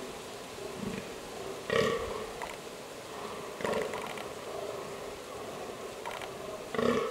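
Fallow deer buck giving its rutting groan: three short groans, about two seconds apart.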